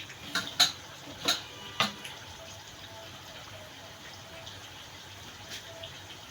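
Four sharp clinks of kitchenware in the first two seconds, then a low steady background.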